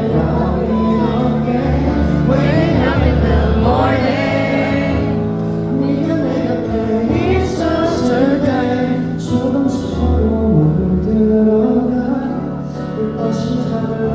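A live pop ballad played by a band over a concert PA, with a voice singing over the accompaniment.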